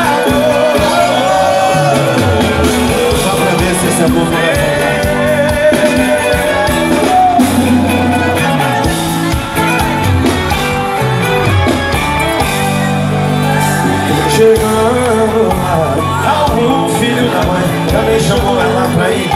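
Live sertanejo music at loud concert volume: male voices singing over a full band through the stage PA.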